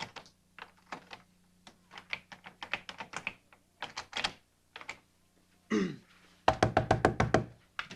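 A motel room door that will not open being tried: a run of irregular clicks and knocks from the handle and latch, then a fast burst of loud banging on the door near the end. The door is locked or stuck.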